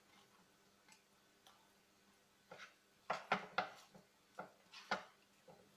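Raw fish pieces and sliced vegetables being mixed by hand in a non-stick frying pan. A few faint clicks at first, then a quick run of short, light knocks and rustles against the pan from about halfway through.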